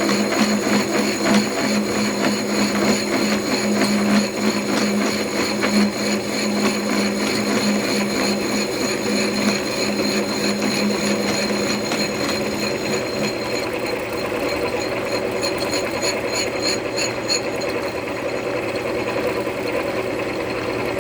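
Milling machine taking a cut in metal, a steady mechanical running noise with a low hum. The hum drops out about twelve seconds in while the machine keeps running, as the cut ends.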